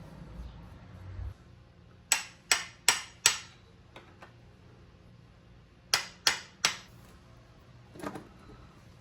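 Sharp metal-on-metal hammer taps, a run of four evenly spaced strikes, then three more, then a single softer one, each ringing briefly. Typical of tapping the steering stem castle nut on a CRF450R to snug it down.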